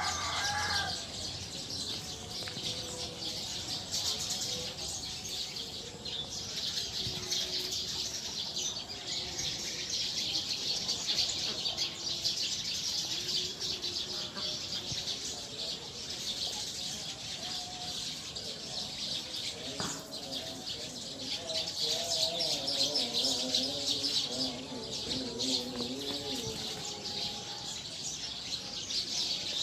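A flock of Eurasian tree sparrows chirping continuously and densely as they gather to roost in a tree.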